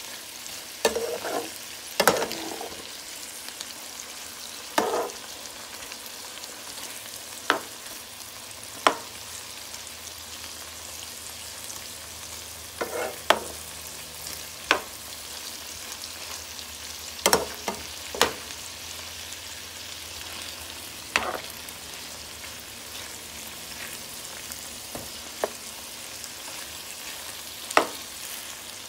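Hot Italian sausages and vegetables sizzling in a frying pan, a steady hiss, with about a dozen sharp, irregularly spaced clinks of a utensil against the pan as the food is stirred and moved.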